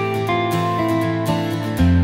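Background music with held, changing notes; a louder, deeper note comes in near the end.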